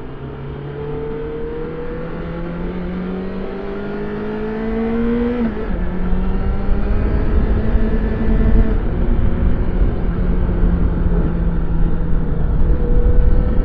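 Yamaha XJ6 Diversion F's inline-four engine with its stock exhaust, pulling under acceleration. The engine note climbs steadily for about five seconds, drops sharply at an upshift, drops again slightly a few seconds later, then holds a steadier note. Rumbling wind noise grows as speed builds.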